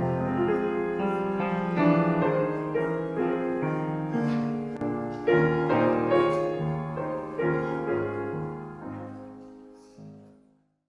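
Piano playing a slow passage of chords that grows softer and dies away near the end.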